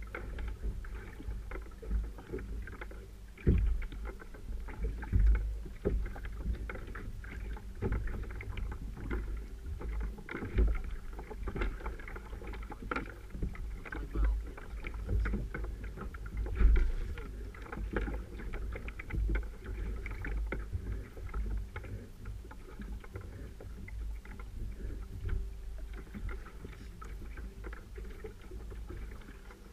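Sea water slapping and knocking against the hull of a paddle ski, with a steady low rumble and irregular thumps.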